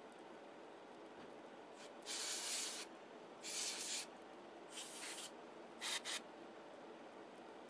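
Four short bursts of hissing noise over a faint steady background noise, the last burst broken into two quick puffs.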